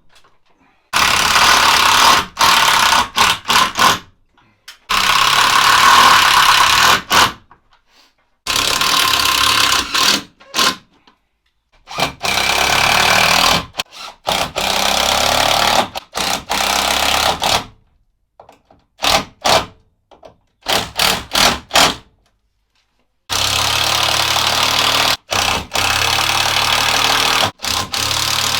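Loud bursts of power-tool noise from metalwork on a steel beam, in a string of short clips that start and cut off abruptly, some broken into several quick on-off bursts.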